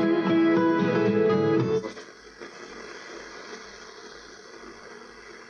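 Guitar music playing through the restored Nordmende Phonosuper valve radio's speaker from a broadcast station. About two seconds in, the station is tuned away and the music cuts off, leaving a faint steady hiss with a thin whistle between stations.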